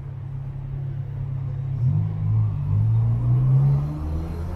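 A nearby motor vehicle engine running with a low hum, then revving up with a rising pitch from about two seconds in as it accelerates away.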